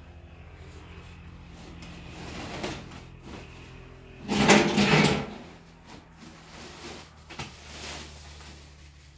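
Handling noise as things are moved on a woven plastic floor mat: one loud scraping rustle lasting about a second, roughly halfway through, with lighter knocks and rustles around it over a low steady hum.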